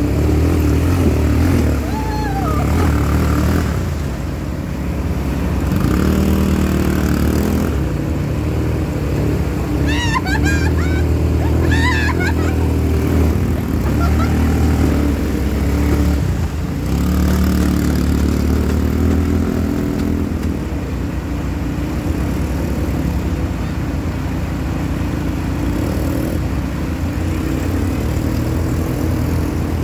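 ATV quad-bike engines running through a shallow river, the engine note rising and falling with the throttle, over rushing, splashing water. About ten seconds in there are a few brief high wavering calls.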